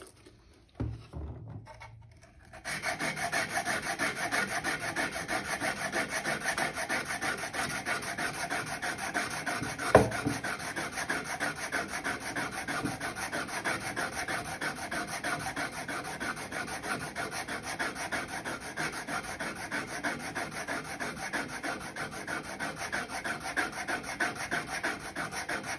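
Hand-plane iron being honed back and forth on 600-grit abrasive: steady, rhythmic rubbing strokes of steel on grit that start about two and a half seconds in and keep going. A single sharp knock about ten seconds in.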